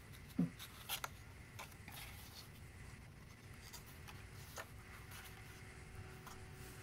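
Card stock being handled, folded and opened by hand: soft paper rubs and scattered light taps. A brief low sound comes just after the start, then two sharper clicks about a second in.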